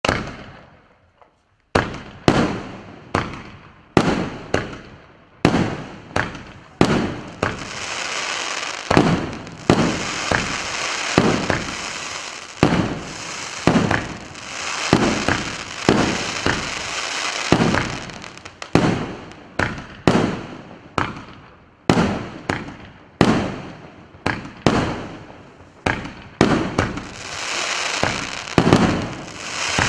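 A 49-shot, 2-inch-calibre consumer fireworks cake firing: a run of sharp launch and burst reports at about one to two a second, each dying away quickly. From about eight seconds in, a steady crackling hiss of burning stars fills the gaps between shots.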